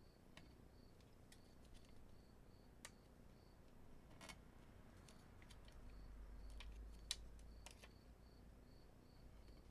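Near silence broken by faint, scattered small clicks and taps: adhesive pearl embellishments being picked off their backing sheet and pressed onto a paper card.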